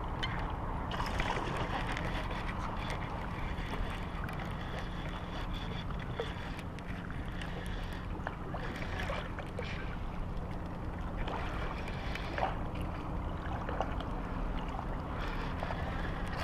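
Steady wind rumble on the microphone with water lapping at the shoreline rocks, and a few faint clicks.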